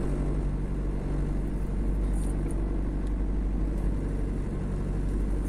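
Chevrolet Kadett's engine idling steadily, heard from inside the cabin as a low, even hum.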